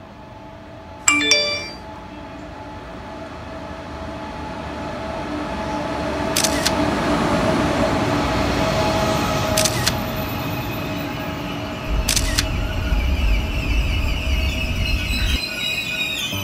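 Korail KTX train pulling into a station and sliding past along the platform: a rumble and steady whine that build as it draws in, with three sharp clicks and a low rumble near the end. A short chime sounds about a second in.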